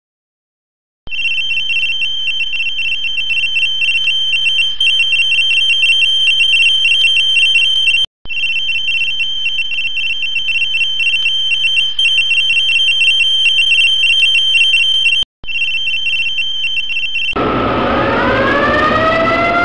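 Steady, high-pitched electronic alarm tone with a fast flutter, breaking off briefly twice. Near the end it gives way to a siren winding up, rising in pitch.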